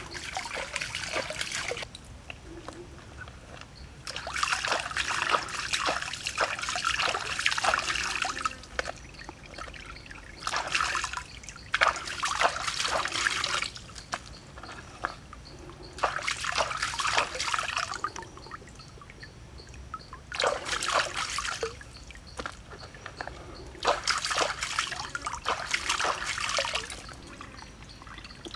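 Stream water splashing and sloshing as hands rinse prawns in a woven bamboo basket dipped in the water. The splashing comes in about six bursts of one to four seconds, with quieter gaps between.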